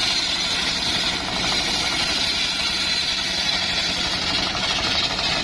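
Homemade circular sawmill's large circular blade cutting lengthwise through a sengon (albizia) log: a steady high whine of the blade in the wood over the low steady running of the engine that drives it.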